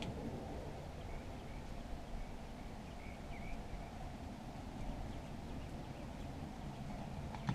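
Steady low background noise with a few faint, short bird chirps, mostly in the first half.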